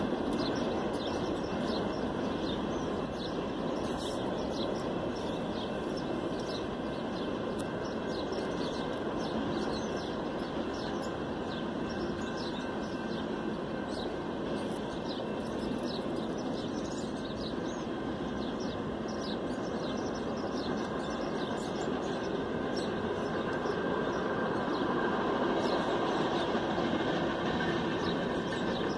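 Union Pacific freight train rolling past, a steady rumble of its cars on the rails, with frequent short high-pitched chirps over it.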